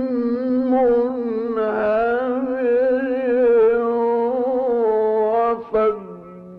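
A male Quran reciter's voice in melodic mujawwad recitation, holding one long ornamented note with a slight waver. Near the end it breaks off into a short, lower, falling phrase.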